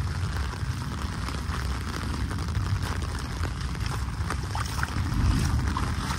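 Wind buffeting the microphone, an uneven low rumble, over a steady hiss.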